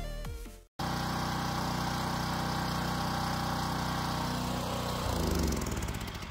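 Small gas engine of a pressure washer running steadily. About five seconds in it changes and winds down, the engine cutting out as the washer is lifted and moved.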